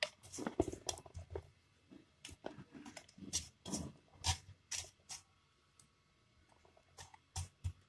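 Irregular faint clicks and soft knocks, scattered with a short quiet gap after the middle.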